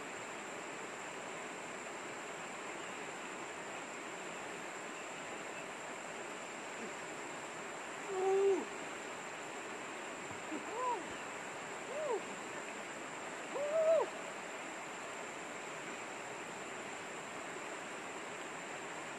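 Shallow river rapids rushing steadily over stones. Between about 8 and 14 seconds in, four short calls that rise and fall in pitch stand out over the water.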